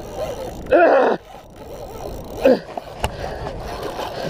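A man groaning with effort while straining against a hooked fish on a bent rod: one loud, drawn-out groan about a second in and a shorter one past the middle. A single sharp click follows about three seconds in.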